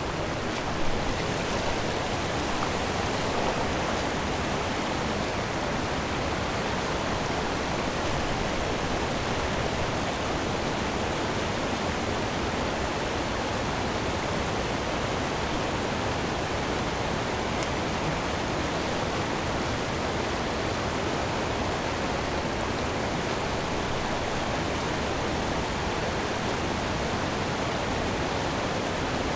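Steady rush of a fast river running over a shallow pebble riffle, with a brief knock about a second in.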